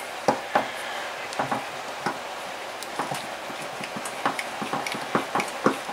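Irregular light metal clicks and knocks from a steel gear puller being handled and its screw turned by hand to draw a part off a model engine's crankshaft.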